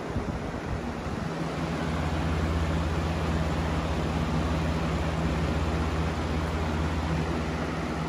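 Box fan running: a steady rush of air with a low electric motor hum that becomes stronger about a second in.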